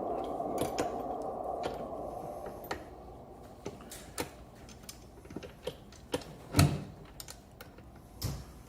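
Scattered light clicks and knocks of metal parts being handled as the wheel and hub motor are fitted back into the scooter's fork, with a louder knock about two-thirds of the way in and another near the end. A hiss fades out over the first few seconds.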